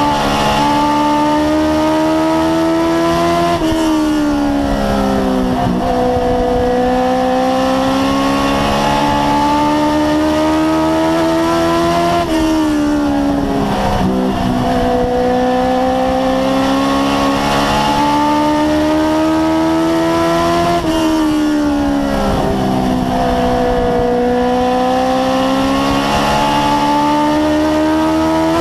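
A race car's engine at racing speed, heard from inside the cockpit: its pitch climbs steadily along each straight, then drops sharply and picks up again as the driver lifts for the turns, about every eight and a half seconds, three times.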